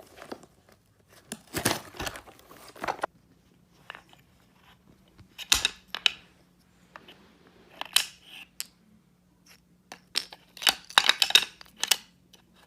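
A package being torn open: paper or plastic packaging tearing and crinkling in short, irregular bursts with pauses between.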